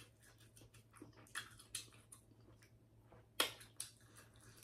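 Close-up chewing and wet mouth sounds of someone eating seafood boil: a run of short smacks and clicks, the sharpest about three and a half seconds in.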